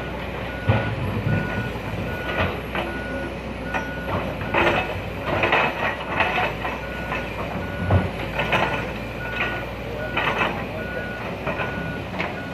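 Excavator's diesel engine running steadily under its warning beeper, which beeps about twice a second throughout. Irregular knocks and grinding scrapes of large rocks being shifted into place by the machine, the sharpest knocks about a second in and about eight seconds in.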